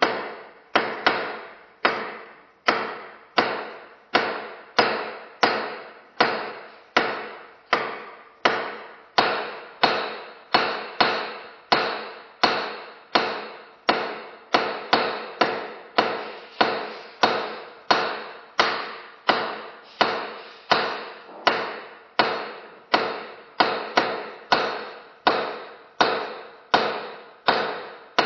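Hammer striking repeatedly at an even pace, about three blows every two seconds, each hit sharp with a short ringing decay.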